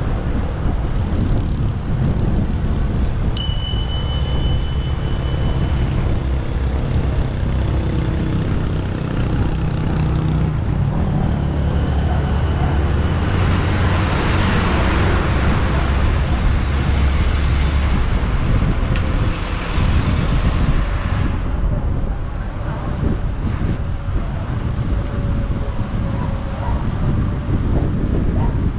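Wind buffeting the action camera's microphone as the electric scooter rides along the road, with road traffic around. A louder rushing hiss swells for several seconds around the middle, and a thin steady whistle sounds briefly early on.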